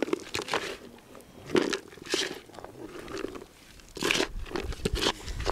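Hands mixing a bucket of carp groundbait, a wet mix of pellets, sweetcorn and crushed tiger nuts soaked in liquid attractant. It gives irregular crunching, gritty strokes, and a low rumble joins about four seconds in.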